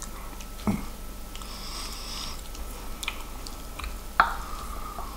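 Close-up eating sounds: chewing and small mouth clicks, with a sniff about two seconds in. About four seconds in, a wooden chopstick clacks against the ceramic plate with a short ring.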